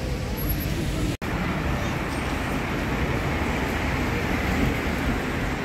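Steady city street ambience of road traffic, with a brief cut-out about a second in.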